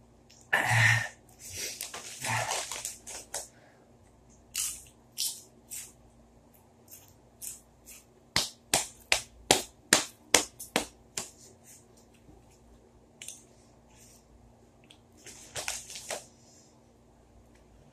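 Potato chips being chewed, with short crisp crunches that come in a quick run of about three a second through the middle, and a short loud burst about half a second in.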